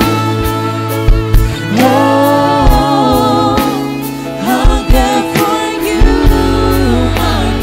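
Gospel worship song: singing with vibrato over bass notes and a steady drum beat.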